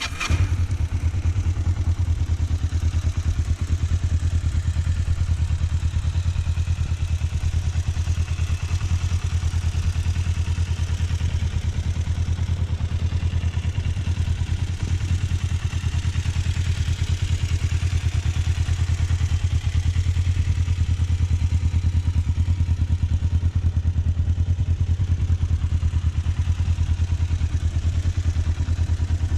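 A 1997 Kawasaki ER-5's parallel-twin engine catches on a warm start right at the outset, then idles steadily through its stock exhaust.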